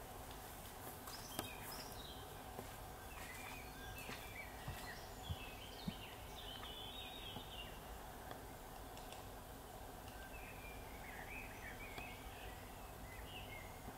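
Quiet outdoor ambience: a steady background hiss with scattered short chirps and twitters of songbirds. A few sharp clicks come about a second and a half in and again around five to six seconds.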